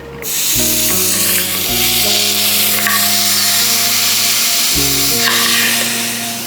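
Red-hot iron ball sizzling against ice, a loud hiss that starts suddenly and eases off about five seconds in, over background music.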